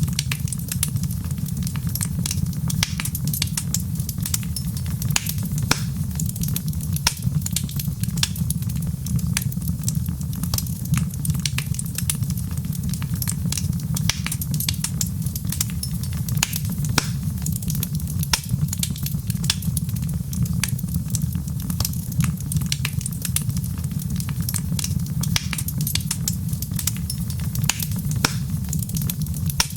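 Wood fire crackling: a steady stream of sharp pops and snaps over a constant low rumble.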